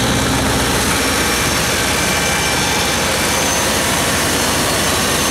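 Perkins 1004-4TG four-cylinder turbocharged diesel engine of a 75 kW generator set running steadily at its governed 1800 rpm, heard up close with the enclosure doors open. A steady rush of air lies over the engine note.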